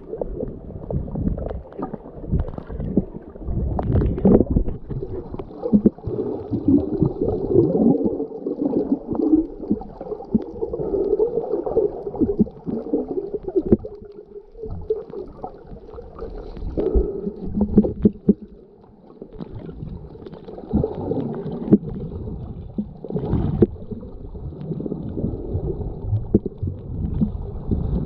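Muffled underwater sound of water sloshing and gurgling around a submerged camera, rising and falling irregularly, with a few sharper knocks.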